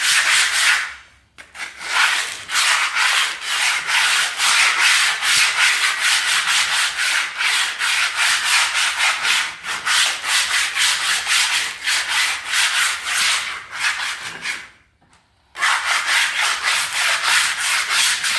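Coarse sanding disc, about 36 grit, rubbed back and forth by hand on metal to clean it, a rapid scratchy scraping of several strokes a second. It pauses briefly about a second in and again near the end.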